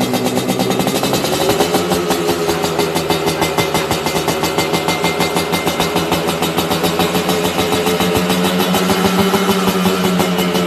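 Yamaha RX-King's two-stroke single-cylinder engine running at a steady fast idle through an aftermarket expansion-chamber exhaust. The revs rise a little about a second and a half in, then hold steady.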